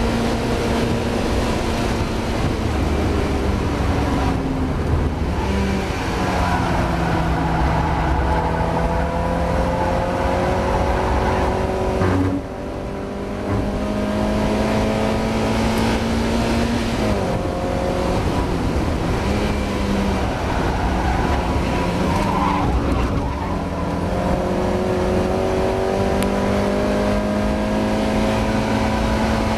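Mazda MX-5 race car engine at full throttle, its note climbing and then dropping at each gear change, with a brief lift off the throttle about twelve seconds in.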